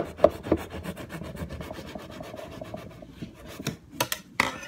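A knife sawing back and forth through a loaf of bread, its blade rasping against a bamboo cutting-board guide: quick strokes at first, then a steadier scraping, with a few sharp knocks near the end.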